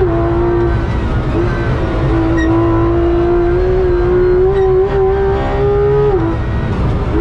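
Porsche 991.2 GT3 RS's naturally aspirated flat-six running hard, heard inside the cabin. The engine note climbs slowly under acceleration and drops sharply twice, at the start and about six seconds in, as it changes up a gear.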